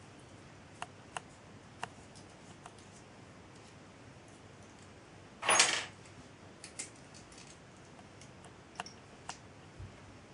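Small metal parts of a model steam engine's brass eccentric and its strap clicking and clinking as they are handled and fitted together by hand, with a few sharp clicks and one short, louder scrape about halfway through.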